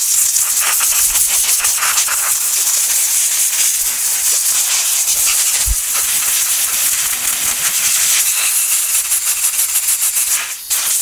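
Compressed air hissing hard from an air-compressor blow gun as it blasts excess spray oil off a disassembled handgun's frame, slide and barrel. The blast stops for a moment near the end, then starts again.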